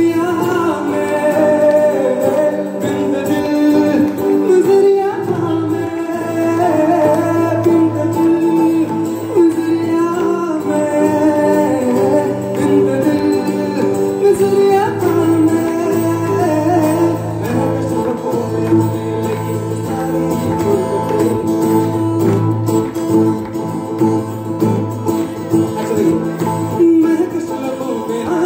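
Live band music: a man singing a melody into a microphone over electric and acoustic guitars, played loud through the stage PA.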